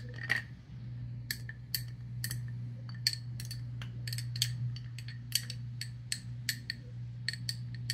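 Clear ice sphere clinking against the inside of a glass tumbler as the stirred old fashioned is lifted and tilted: sharp, ringing clinks, irregular, about two a second. A steady low hum runs underneath.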